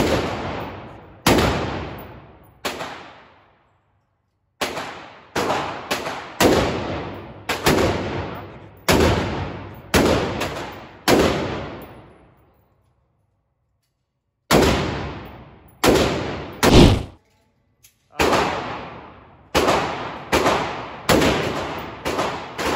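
5.56 rifle fired semi-automatically, about twenty single shots at an uneven pace of roughly one or two a second, with two short pauses. Each shot is followed by a long echo.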